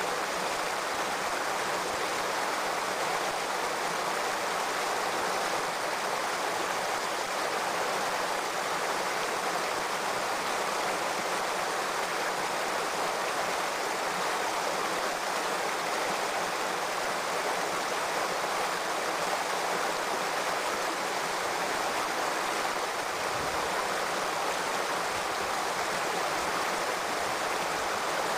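Shallow rocky stream running, a steady even rush of water with no breaks.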